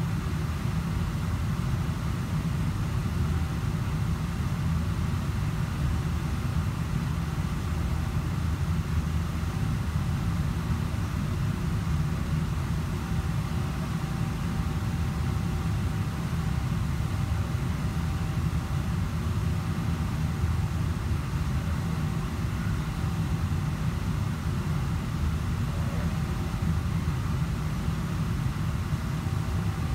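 Steady low rumble of kitchen ventilation machinery, unchanging throughout, with a faint thin hum above it.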